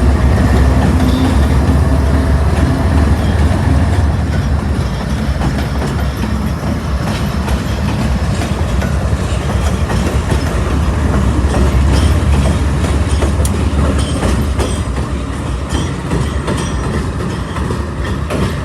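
Freight train's diesel locomotives running close by, a loud steady low rumble with the wheels clacking and rattling on the rails.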